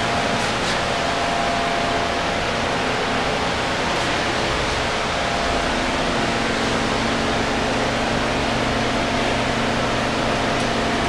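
Steady fan-like rushing noise with a faint low hum, even throughout.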